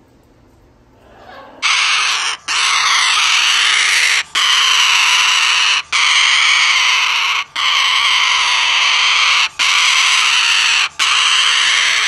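White cockatoo screaming: a run of loud, harsh screeches, each one to two seconds long with short breaks between, about seven of them, starting about a second and a half in.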